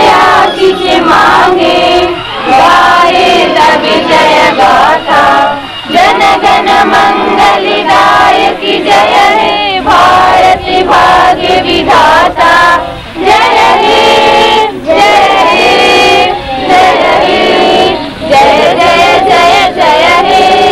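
A group of children singing loudly together in chorus, phrase after phrase with short breaks between.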